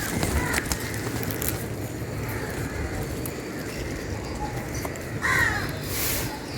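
Broom sweeping the ground in a garden, a steady scratchy swishing, with a crow cawing once about five seconds in.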